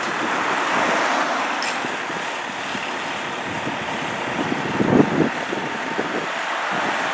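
Steady vehicle noise from a 2007 Pierce Arrow XT fire engine running in its station bay, mixed with street traffic noise, with a few low thumps about five seconds in.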